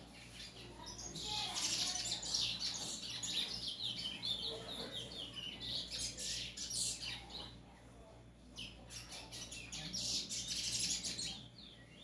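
A caged bullfinch singing in rapid, high-pitched chirping phrases. It sings two long bouts, one from about a second in to past seven seconds and a second from about nine to eleven seconds, with a short pause between.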